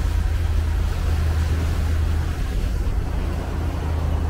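Motor cruiser underway on a lake: the engine runs at an even low drone, with water and wind rushing past the hull.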